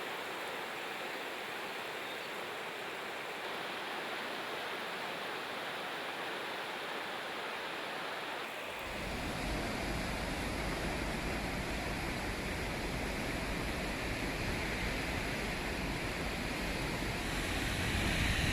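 Steady rush of flowing floodwater. About nine seconds in, it changes abruptly to a louder, deeper rushing with more rumble.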